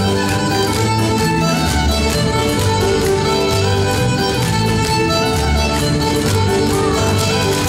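Live fiddle tune played with band accompaniment, with a walking bass line and a steady, lively beat for dancing.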